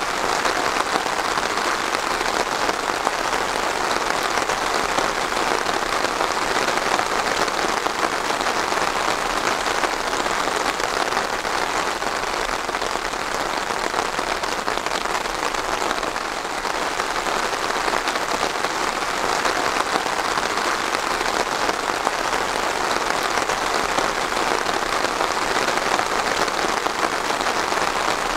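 Steady rain falling and pattering on a surface, an even, unbroken hiss of drops.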